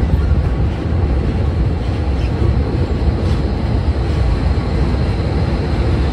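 Passenger train running on the rails, a steady low noise heard from an open carriage window as the train enters a station platform.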